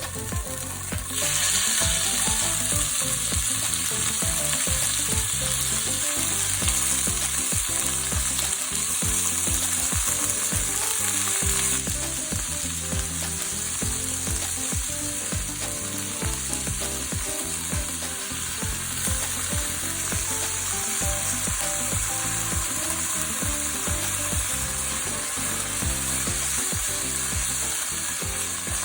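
Lotus root and pork stir-frying in a hot pan: a steady frying sizzle. It swells about a second in and eases a little about twelve seconds in.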